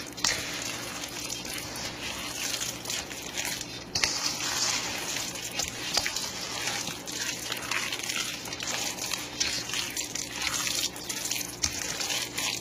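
Spoon stirring a thick, wet suet mixture of peanut butter, nuts and birdseed in a stainless-steel bowl: continuous squelching and scraping, with the spoon knocking against the bowl now and then.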